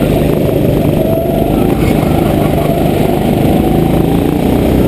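Go-kart engine running at speed, heard close from the driver's seat, a steady loud drone through the corner.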